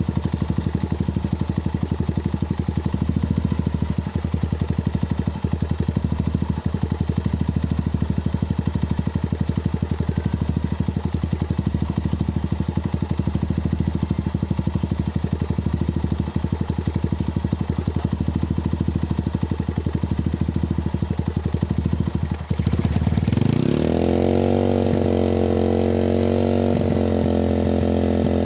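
Honda TMX single-cylinder four-stroke engine idling through an open bullet-pipe curve-type muffler, with an even exhaust beat. Near the end, the throttle is opened and the engine revs up and is held at higher revs.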